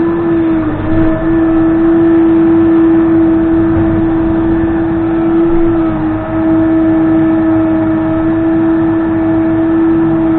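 Case 580N backhoe loader's diesel engine running at high, steady revs. Its pitch sags briefly twice, once about half a second in and again around six seconds in.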